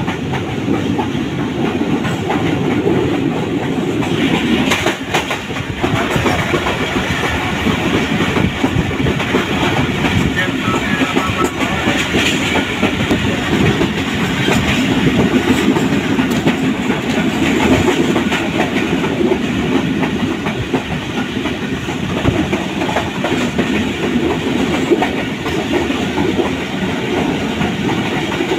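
Train running along the rails, heard from on board: a steady, loud rumble of wheels on track.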